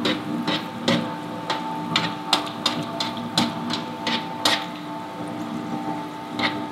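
Repeated sharp knocks, irregular at about two a second, with a pause of a second or so near the end, over a steady machine hum.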